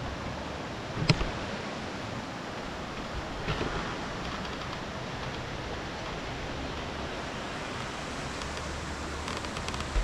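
Steady outdoor rushing noise with a low rumble, and a single sharp click about a second in.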